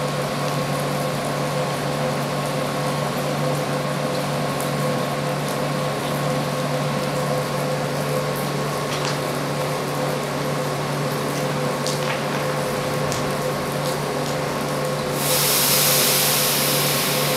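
A Russian electric multiple unit standing at a platform, its onboard machinery humming steadily. About fifteen seconds in, a loud, sudden hiss begins and carries on.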